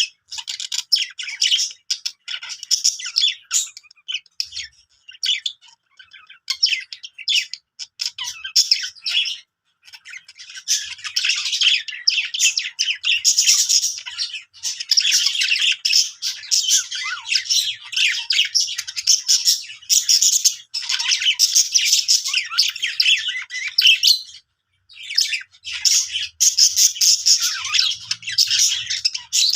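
Budgerigars chattering, a dense run of rapid chirps, warbles and squawks, with a few brief pauses.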